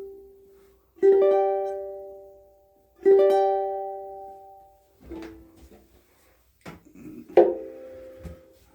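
Ko'olau C200 ukulele with fluorocarbon strings: two chords, about two seconds apart, are strummed and left to ring out at the close of a tune. After them come a few quieter plucked notes and small knocks as the strings are damped and the instrument is handled.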